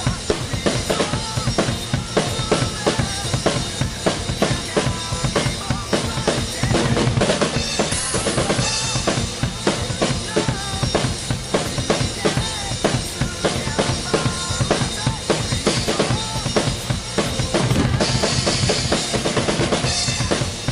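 Acoustic drum kit played in a steady rock beat, with bass drum, snare and Sabian cymbals, over a recording of a rock song with singing. Cymbal crashes swell up about eight seconds in and again near the end.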